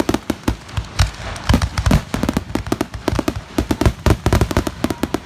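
Fireworks going off in a rapid, irregular barrage: a dense run of sharp bangs and crackles, several a second, overlapping one another.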